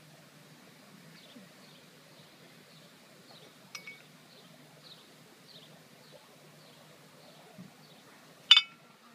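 Faint, regular chirping of a small bird, about twice a second, with a few sharp clinks. The loudest is a single ringing clink near the end.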